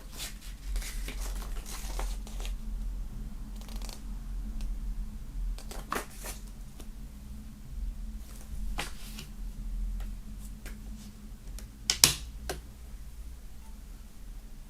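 Hands handling a boxed CD set's packaging: rustling of paper and cardboard with scattered light clicks and taps, the sharpest click about twelve seconds in, over a faint steady low hum.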